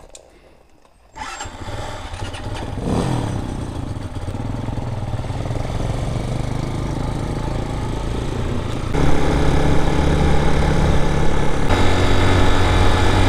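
A motorcycle engine starts about a second in, with a sudden onset, and settles into steady running. The engine sound steps up louder about two-thirds of the way through.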